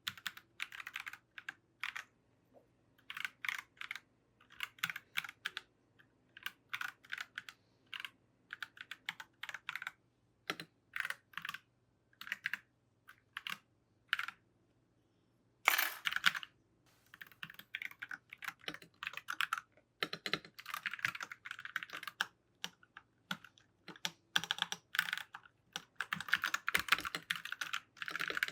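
Keys of a mechanical keyboard being typed on in irregular bursts of rapid clicks with short pauses between them, the clicking becoming denser and more continuous in the second half.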